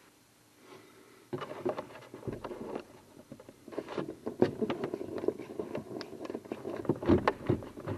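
Hand screwdriver turning a screw into the wooden underside of a foosball table: rough scraping and grinding with irregular clicks and knocks, starting about a second and a half in.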